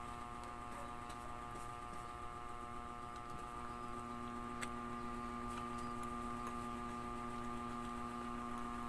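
Steady electrical hum, with a few faint, soft clicks of chewing fried tofu now and then.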